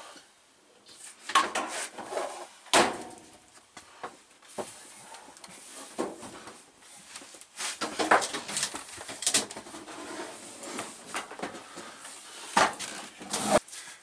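A compact laundry appliance being pulled and shifted out of its tight recess: irregular thumps, knocks and scraping, with several sharp knocks, the loudest about three seconds in.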